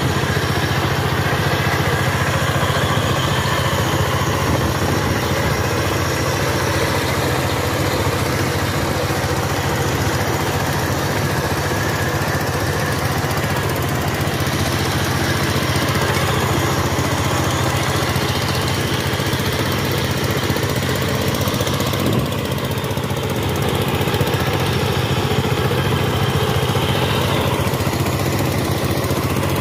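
Single-cylinder diesel engine of a two-wheel power tiller running steadily under load as its cage wheels churn through a flooded rice paddy.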